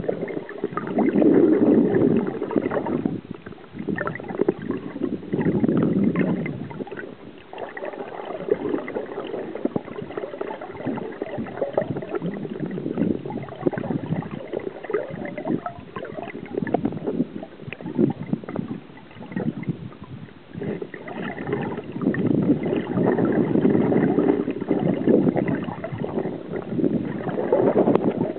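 River current gurgling and rushing around an underwater camera, with a crackly texture. It grows louder in stretches near the start and toward the end.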